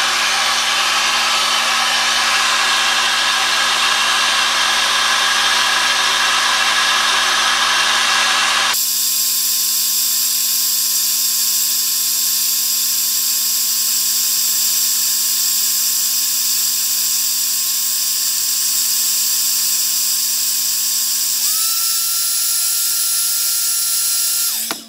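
Heat gun running, a steady whine of air noise as it blows hot air on a laptop's sound chip to melt the solder. Its sound changes abruptly about a third of the way in. Near the end a thin whine steps up in pitch, and then the sound stops.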